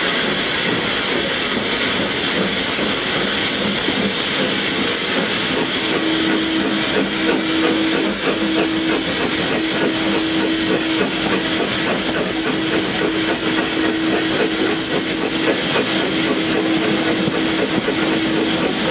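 Two steam tank locomotives, SECR P class 323 Bluebell and LB&SCR Terrier 55 Stepney, pulling slowly away from a station. Steam hisses continuously, and a steady tone joins about six seconds in.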